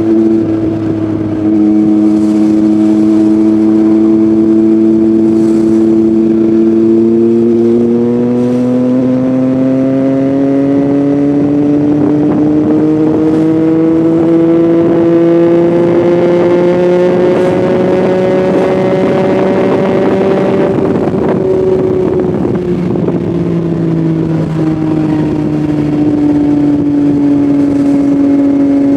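Yamaha MT-09's 890 cc inline three-cylinder engine running through an Akrapovic full-system exhaust while riding. The engine note holds steady, rises gradually over about thirteen seconds as the bike gathers speed, then drops as the throttle is rolled off and settles at a steady pitch.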